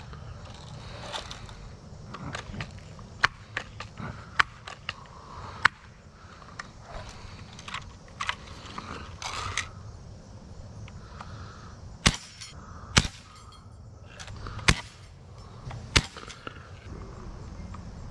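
BB gun being handled and fired: a string of sharp clicks and snaps, with the four loudest coming about a second apart in the second half.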